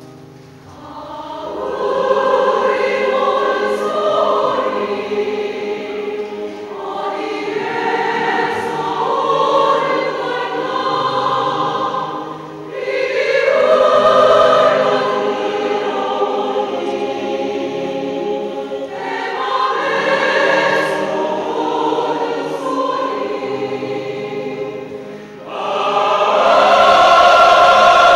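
Mixed choir of men's and women's voices singing a Korean choral song in long sustained phrases. There are brief dips between phrases about 12 and 25 seconds in. Near the end the choir comes in fuller and louder.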